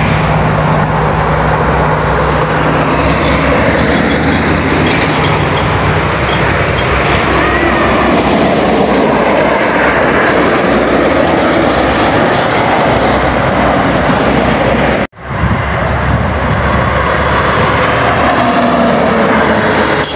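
Intercity buses and other heavy traffic passing at speed on a highway: a loud, steady rush of engine and tyre noise. It drops out for a moment about fifteen seconds in.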